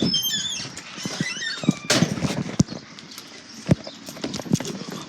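A small bird giving a few short, high chirps with wavering, falling pitch, mixed with scattered knocks and rattles from a homemade trap being handled.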